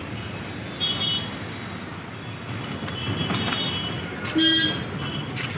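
Street traffic running steadily, with several short high-pitched horn toots, the loudest about four and a half seconds in.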